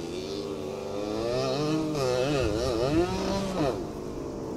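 Motorcycle engine revving on a dirt practice track, its pitch climbing and dropping, with a run of quick throttle blips from about two seconds in.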